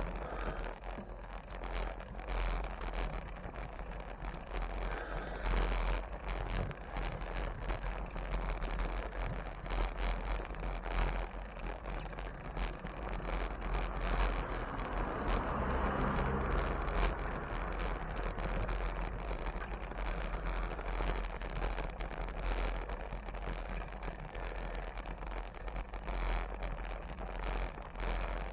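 Wind buffeting the microphone of a camera riding along on a moving bicycle, a steady low rumble mixed with road and traffic noise. It swells to a louder rush about halfway through, with a low engine-like hum.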